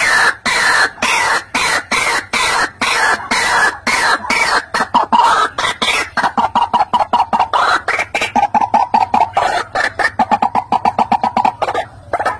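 White-breasted waterhen calling: a fast run of repeated 'ruak-ruak' notes that quickens into a more even chatter about halfway through, with a short break near the end.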